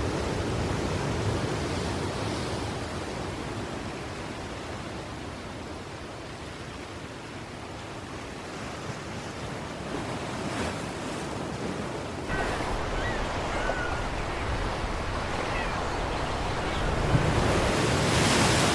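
Sea surf and wind: a continuous rushing of waves that swells louder near the end, with a few faint short high chirps about two-thirds of the way through.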